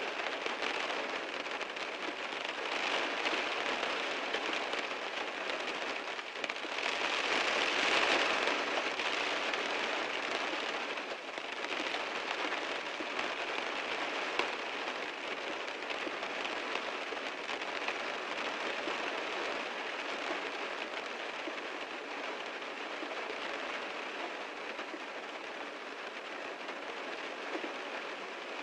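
Heavy rain drumming on a car as a dense steady hiss, swelling louder for a couple of seconds about seven to nine seconds in.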